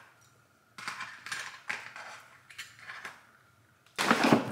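A fork scraping and tearing at a cooked chicken in a plastic tray: several short rustling scrapes, then a louder clatter of the plastic tray near the end as it is handled over a ceramic bowl.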